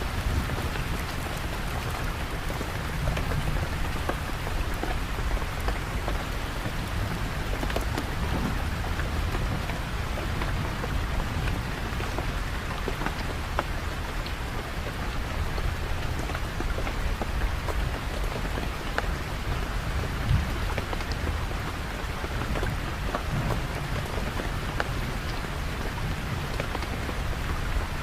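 Steady heavy rain falling, with scattered sharp drop ticks over a constant low rumble.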